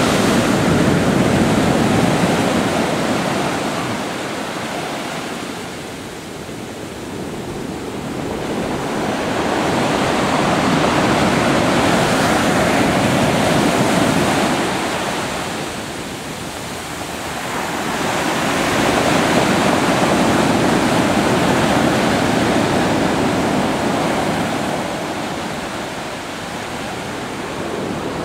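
Pacific Ocean surf breaking and washing in, a steady rush of water that swells and fades with each wave, about every ten seconds.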